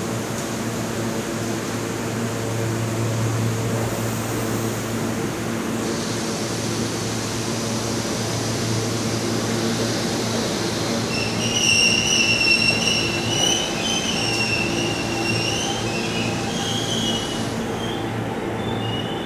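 An R46 subway train on the Q line pulling into the station, a steady rumble of wheels and motors. Just past halfway, high-pitched squealing from the brakes and wheels sets in and comes and goes for several seconds as the train slows.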